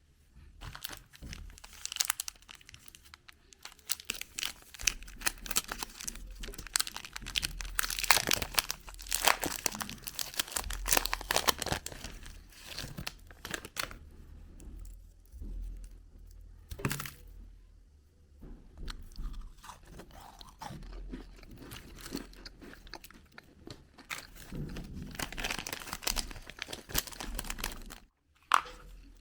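Candy wrappers being crinkled and torn open by hand, close to the microphone: dense crackling in bursts with short pauses, and one sharp click about two-thirds of the way through.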